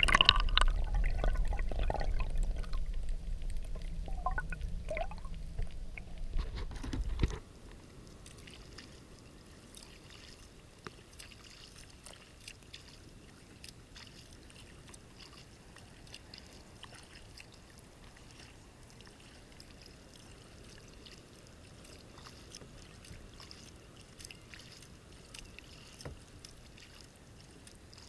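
Muffled, low rush of water picked up by a camera held underwater, stopping suddenly about seven seconds in. Then faint lapping of calm water against a kayak hull, with small scattered ticks.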